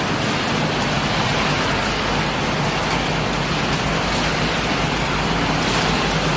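Refrigerator crushing and sorting line running: a loud, steady wash of machine noise with a low hum underneath.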